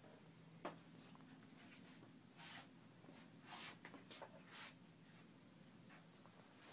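Near silence: faint room hum with a click about half a second in and several brief scratchy rustles in the middle.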